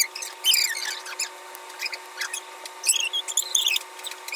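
A quick run of high-pitched squeaks and chirps, short rising and falling whistles, over a faint steady tone.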